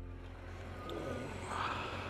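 Motorcycle moving off from a standstill: a low engine hum under a rush of wind and road noise that swells about a second and a half in as the bike gathers speed.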